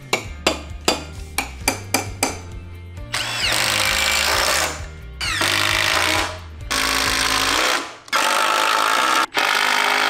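Cordless impact driver driving tech screws through steel joist brackets into timber. It runs in five bursts of one to two seconds each, starting about three seconds in, over background music with a steady beat.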